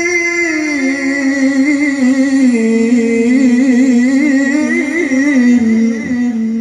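A male Quran reciter in melodic tilawah style, drawing out one long vowel. He holds a steady high note, drops to a lower note about half a second in, and spins it out with wavering ornaments before it fades near the end.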